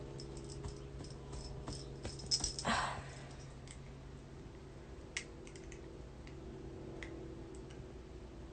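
Faint scattered clicks and taps over a steady low hum, with a brief louder rustle about two and a half seconds in.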